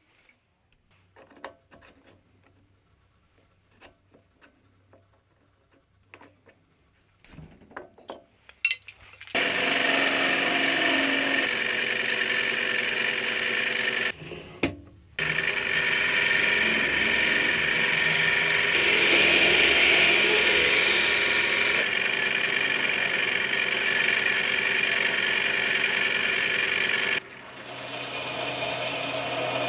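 A few faint clicks and taps, then a metal lathe starts running and a carbide turning tool cuts steel stock with a steady hiss. The sound breaks off briefly about halfway and drops and changes tone near the end.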